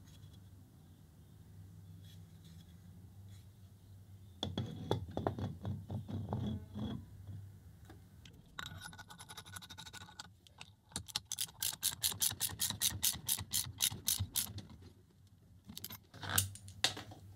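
An aluminium-hub drive wheel clunking and scraping as it is slid onto an electric motor's shaft, then a ratchet wrench clicking rapidly and evenly for a few seconds as the wheel is tightened down, with a couple of knocks near the end.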